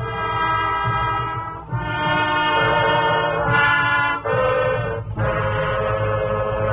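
Radio-drama orchestral music: brass playing a series of held chords, changing chord about every second or two.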